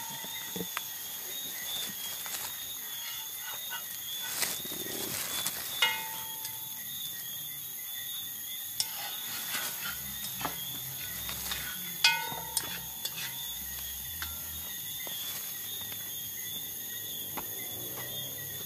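Steady high chirring of insects, with scattered light taps and scrapes and two sharper metallic clinks that ring briefly, about six and twelve seconds in.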